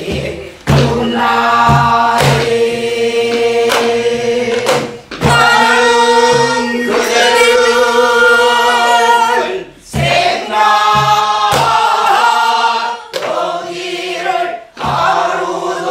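Several women singing a Namdo folk song together in the southern Korean style, to strokes of a buk barrel drum. The low drum beats recur about once a second, and the singing breaks briefly between phrases.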